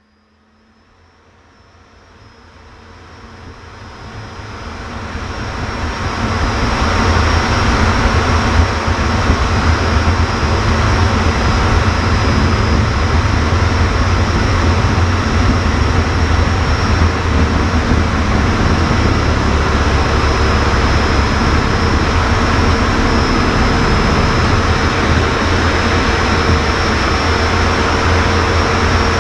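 BAC Jet Provost's Armstrong Siddeley Viper turbojet heard from inside the cockpit: a steady jet rumble with a high turbine whine. It rises from near silence over the first several seconds, then holds steady and loud.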